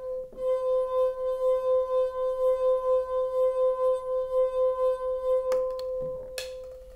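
A wine glass partly filled with water, singing as a wet finger rubs around its rim: one steady tone with a ringing overtone, swelling and fading about three times a second with the finger's strokes. The water tunes the pitch to match the empty glass beside it and set it vibrating in resonance. About five and a half seconds in, a click cuts the tone to a faint lingering ring.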